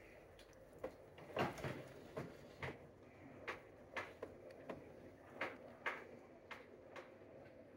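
O gauge model train's wheels clicking over the rail joints as it runs along the track: a string of sharp, irregular clicks about one or two a second, the loudest about a second and a half in.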